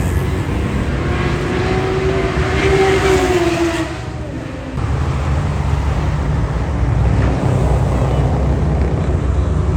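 Motorcycle engines running, with a steady low rumble. One engine's pitch rises and then falls about two to four seconds in, and the sound drops briefly just after.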